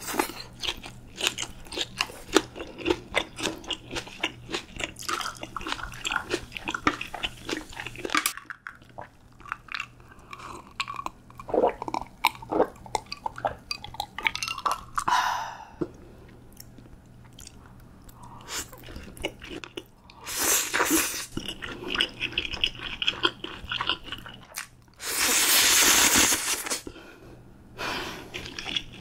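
Close-miked chewing of crispy pork belly and spicy stir-fried noodles, with dense crunching clicks for the first several seconds that then thin out. Swallowing gulps of beer come around the middle, and a loud, breathy rush of sound lasts about two seconds near the end.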